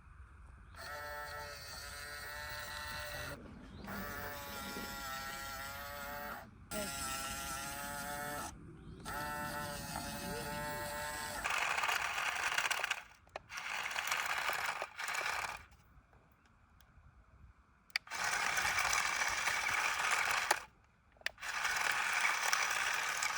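Small electric motors of a toy RC construction vehicle whirring in runs of a few seconds, stopping and starting several times, with a steady wavering whine for the first half and a rougher, noisier run later.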